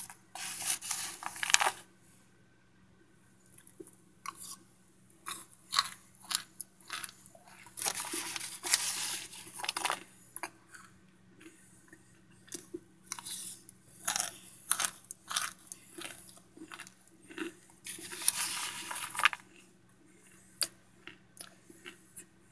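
Chunks of microwaved Argo cornstarch being chewed: dry, crackly crunching in several bursts a second or two long, with short pauses and a few single crackles near the end.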